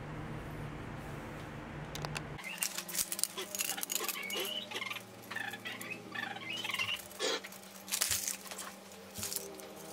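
A steady low hum for about two seconds, then a run of sharp metallic clicks and clinks as the thin steel panels of a folding camp wood stove are fitted together and set down. Short high chirps, like small birds, come in between the clicks.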